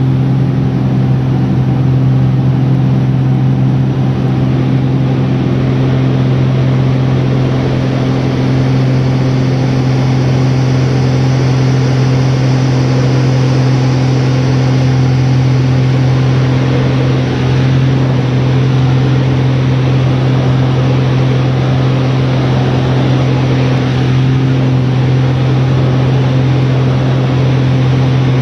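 Extra 330LX aerobatic plane's six-cylinder Lycoming engine and propeller running at steady power in flight, heard from inside the cockpit: a loud, even drone with a strong low hum.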